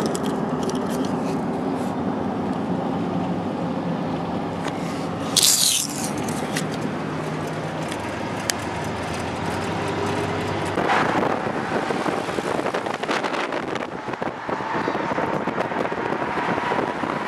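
Steady engine and road noise heard inside a moving car's cabin. A short, loud rush of noise comes about five seconds in.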